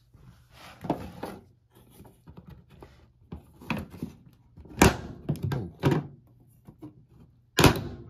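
Plastic clicks and knocks from the drain-pump access cover of an LG front-load washer as it is handled and pulled off, with two sharp knocks, one about five seconds in and one near the end.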